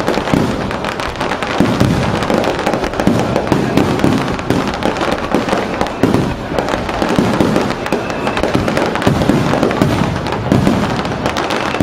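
Aerial fireworks bursting in quick succession: overlapping booms and crackling with no break.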